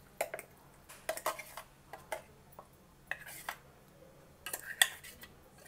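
Steel spoon scraping and tapping inside a steel mixer-grinder jar and against a steel bowl, scooping out thick ground chutney: scattered light clinks and short scrapes, the loudest a clink about five seconds in.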